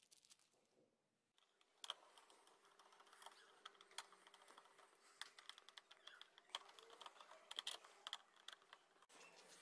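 Faint rapid clicking and crinkling of hand work on a TV stand: a screwdriver driving the stand's screws, with plastic wrap rustling. It starts about a second and a half in.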